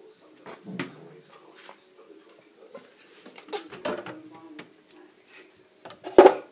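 Kitchen handling noises: scattered light clicks and knocks of things being moved about. There is a louder clatter a little past halfway and the loudest knock near the end.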